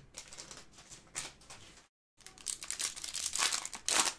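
Foil trading-card pack being torn open by hand and its wrapper crinkled. The rustling stops briefly about two seconds in, then comes back denser and louder, loudest near the end.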